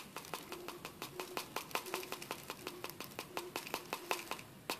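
Granular fertilizer trickling from a cut plastic bottle into a plastic bottle-neck fertilizer basket: a quick, uneven run of light ticks as the granules hit the plastic.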